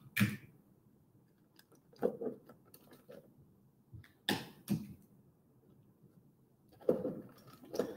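Aluminium foil crinkling and adhesive tape being pressed onto it: a handful of short, quiet crinkles and taps with gaps between them.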